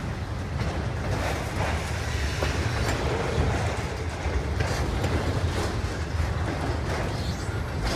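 Freight train rolling past, a steady low rumble with its wheels clicking over the rail joints.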